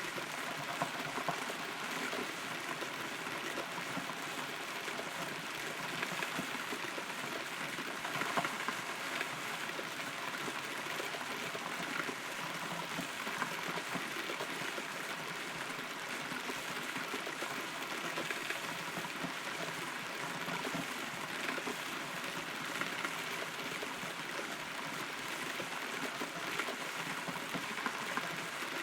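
Steady rain heard from inside a hollow rotten tree, a constant patter with many individual drops ticking on the wood.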